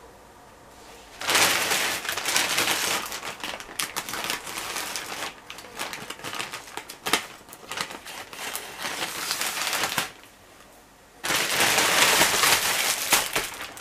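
Plastic postal bag crinkling as it is cut open with scissors, with many sharp snipping clicks. After a short pause, the bag crinkles loudly again as it is lifted and its contents tipped out.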